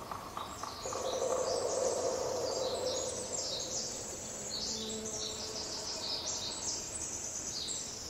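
A pileated woodpecker's drumming roll, a fast run of knocks on wood, ending about a second in. Small birds sing high, quick chirping phrases throughout, and a low rushing noise swells for a couple of seconds after the drumming.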